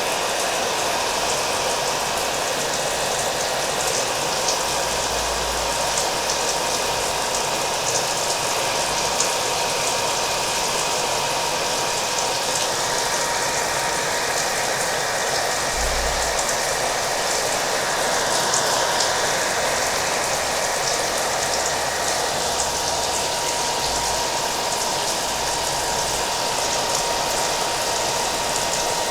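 Hair dryer running steadily, a constant noise with a thin steady whine, mixed with rain falling, its drops ticking finely over the top.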